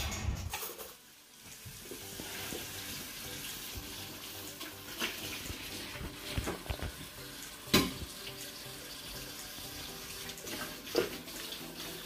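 Kitchen tap running steadily into a sink as hands wash up under the stream, with a few sharp clinks along the way.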